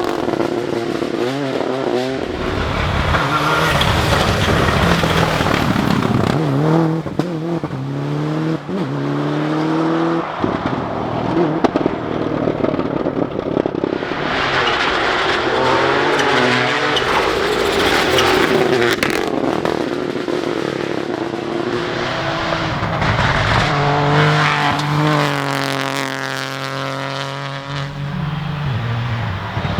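Rally cars at full race pace: engines revving hard, each climbing in pitch and dropping back at every gear change, as cars come through one after another.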